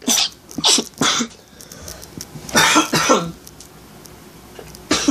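A person coughing in short fits: about three coughs at the start, two more a couple of seconds later, and one more near the end.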